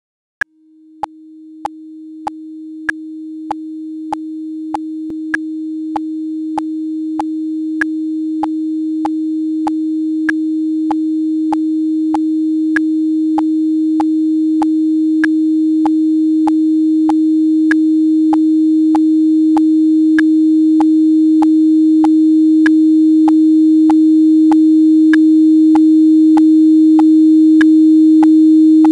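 A synthesized 314.15 Hz sine tone (pi × 100), steady in pitch, fading in about half a second in and growing slowly louder. It is overlaid with short clicks at 97 beats per minute, about one every 0.6 s, with every fourth click a little brighter.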